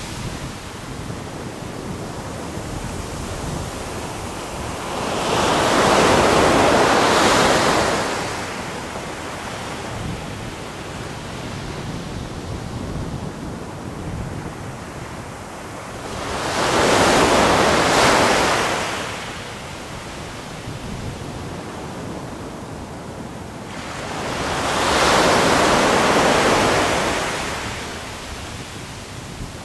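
Ocean surf breaking on a beach: three waves crash and wash in, about ten seconds apart, over a steady hiss of surf between them.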